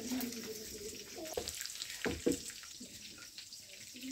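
Water running or splashing, with a few knocks of handled objects, typical of washing up.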